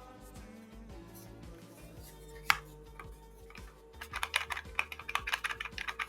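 Plastic buttons clicking over background music: one sharp click about two and a half seconds in, then a rapid run of clicks over the last two seconds.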